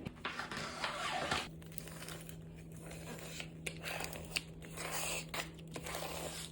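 Plastic craft vinyl sheet being handled, rustling and crinkling in irregular bursts. A steady low hum comes in about a second and a half in.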